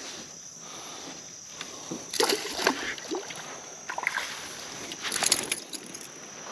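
Water splashing and sloshing against a small fishing boat, in two short bursts about three seconds apart.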